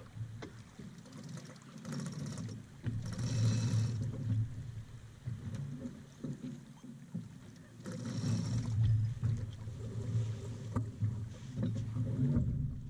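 Water rushing along the hull of an X-332 sailboat under way, a steady, uneven rumble with two louder hissing surges about three and eight seconds in.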